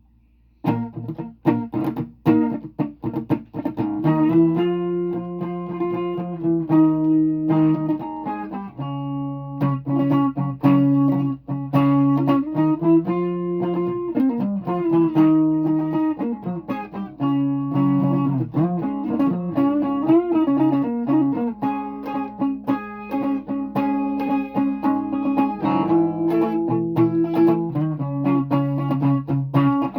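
A guitar being played: short, choppy picked notes for the first few seconds, then held notes and chords, some bent so the pitch wavers up and down.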